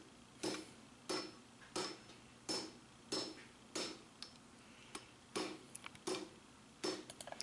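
Hand hammer striking red-hot lawnmower-blade steel on an anvil, steady blows about one and a half a second, each with a short metallic ring, as the end of the blade is drawn out into a handle. A few lighter, quicker taps come near the end.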